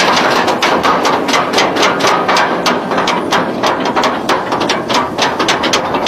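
Goliath roller coaster train climbing its chain lift hill, the anti-rollback ratchet clacking in a rapid, even rhythm.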